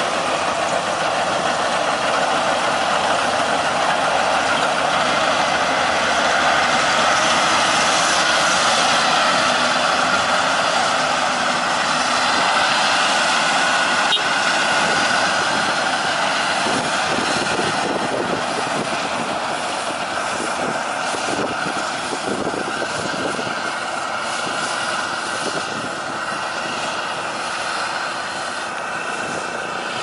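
Maxxi Bimo rice combine harvester running as it cuts through standing rice: a steady engine and machinery drone with whining tones, a little fainter in the second half.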